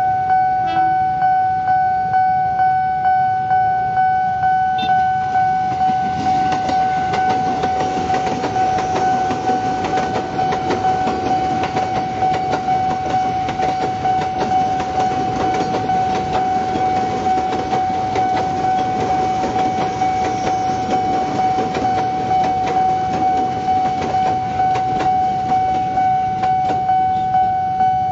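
Level-crossing warning alarm sounding a steady electronic tone that pulses about once a second. Over it, an electric commuter train passes over the crossing with its wheels clattering on the rails, from about six seconds in until near the end.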